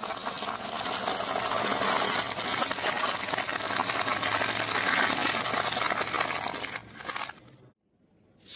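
Car tyre rolling over thin, brittle sesame-speckled crackers on concrete, crushing them in a long run of dense crackling and crunching that stops about seven seconds in.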